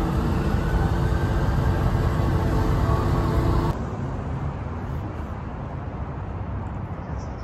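A car on the move: steady engine and road noise, which drops abruptly to a quieter, duller road noise about four seconds in.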